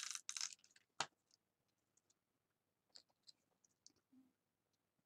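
Paper card stock being handled on a craft mat: a brief rustle at the start, one sharp tap about a second in, then a few faint light clicks.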